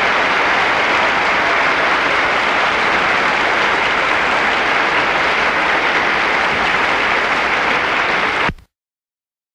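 Theatre audience applauding steadily in a live opera recording, cut off suddenly near the end.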